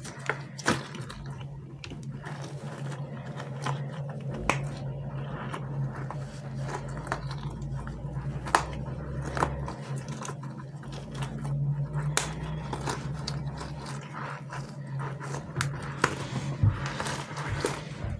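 Hands handling squishy toys: scattered taps, clicks and crackles over a steady low hum.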